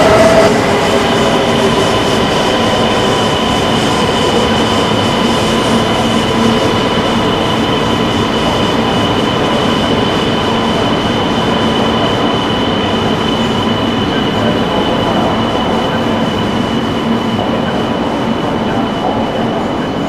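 E926 'East i' Shinkansen inspection train running along the tracks: a steady rolling rail noise with a thin, steady high-pitched whine over it. A brief rising whine at the very start cuts off.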